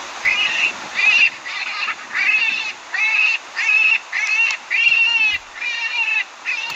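Predator call sounding a string of about ten short, wavering, high-pitched animal distress cries in a steady rhythm, the kind played to lure coyotes in.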